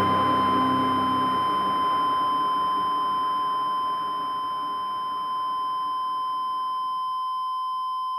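A steady electronic beep tone held without a break and slowly fading, with a low drone dying away in the first second or so.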